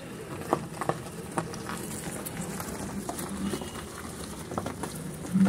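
Footsteps crunching on loose gravel: a few irregular short crunches over a steady outdoor background hiss.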